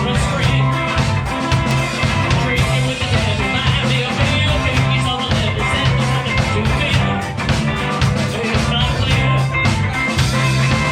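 Rock band playing live, a loud, steady groove of drums, bass and guitar.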